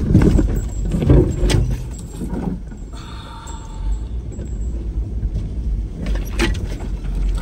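Car on the move: a steady low rumble of engine and road, with several clunks and rattles, the loudest about six seconds in.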